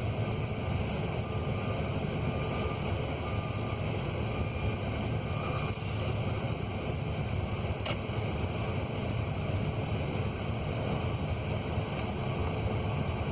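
Steady low rumble of a pickup truck's engine, heard from inside the cab.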